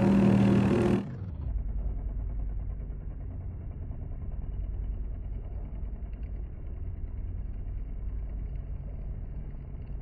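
Metal lathe running while a knurling tool rolls a coarse diamond knurl into a ductile iron workpiece. In the first second a louder sound with a few steady pitches cuts off, leaving a steady, dull low rumble.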